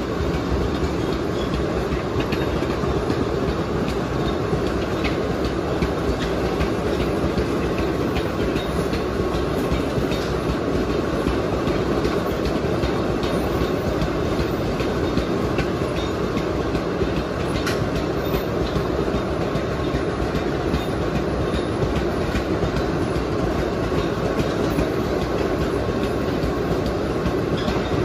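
Loaded sugarcane bins of a narrow-gauge cane train rolling past in a steady rumble, with the clickety-clack of wheels over rail joints and scattered metallic clicks.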